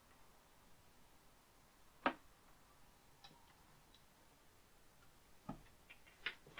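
A few scattered sharp knocks and taps from a collapsible pop-up green screen being handled and set against the wall. The loudest comes about two seconds in, and a small cluster comes near the end, over an otherwise quiet room.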